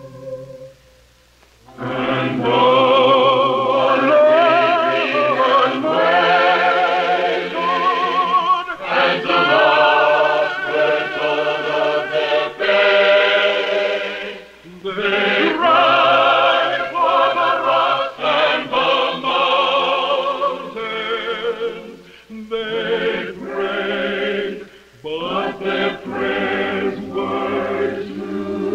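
Mixed choir of men's and women's voices singing with vibrato, in long phrases broken by short pauses. The singing comes in about two seconds in, after a brief lull.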